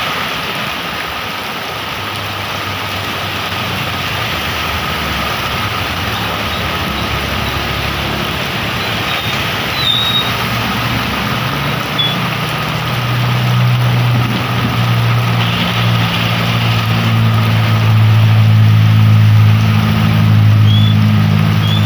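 Steady hiss of heavy rain, with a motor vehicle's engine running nearby. The engine's low hum grows louder from about halfway in.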